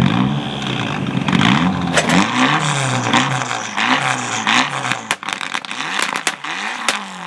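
Rally car engine revving hard, its pitch rising and falling again and again as it accelerates and changes gear. From about five seconds in the engine fades and a run of sharp pops and cracks follows.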